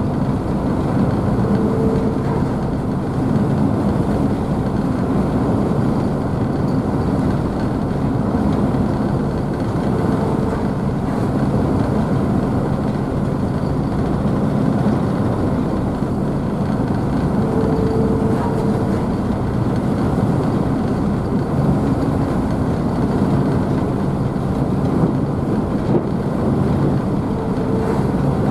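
Ise Bay Ferry's engines running steadily under way, mixed with the rushing and splashing of the wake and wave spray. The steady hum carries no break or change.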